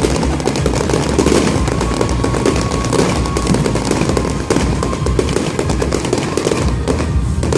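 Aerial fireworks going off in a dense, continuous rapid crackle of small bangs.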